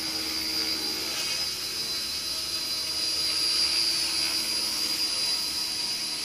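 JR Forza 450 electric RC helicopter hovering and climbing, a steady high-pitched motor whine over the hum of its rotors.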